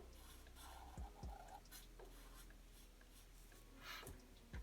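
Faint pencil scratching on paper in short drawing strokes, with a few soft knocks against the drawing surface.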